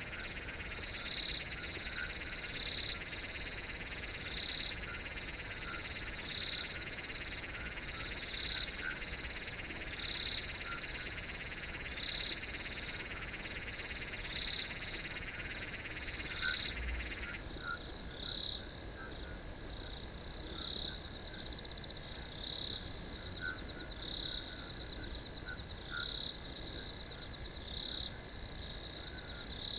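Field crickets chirping: a steady high trill with a regular louder chirp about every second and a half. A second, lower trill stops abruptly a little past halfway.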